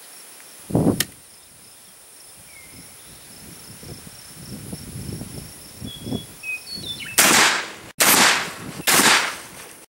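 Black-powder muzzleloading rifle firing a Maxi-ball: a loud boom near the end, heard three times in quick succession. A short thump comes about a second in, and crickets chirp steadily underneath.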